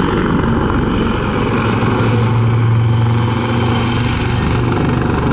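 AgustaWestland AW159 Wildcat helicopter flying a display manoeuvre, with loud, steady rotor chop and the sound of its twin turboshaft engines. A low hum grows stronger about two seconds in as the helicopter banks steeply.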